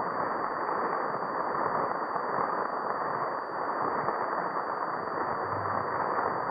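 Studio audience applauding steadily, heard through the muffled, narrow sound of an old transcription-disc recording, with a faint steady high whine.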